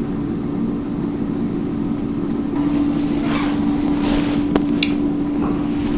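Cosori air fryer running: a steady fan hum with a rush of air. A few light handling rustles come through near the middle, with a sharp click about four and a half seconds in.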